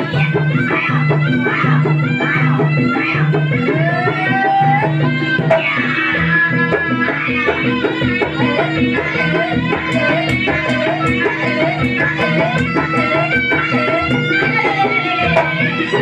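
Javanese jaranan music: a wavering reed melody with sliding notes over hand drums and a steady, repeating low chiming pattern.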